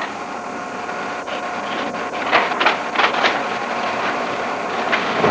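Steady whirring hum and hiss of an old camcorder's own tape mechanism picked up by its microphone, with a few short sharp noises about two to three and a half seconds in.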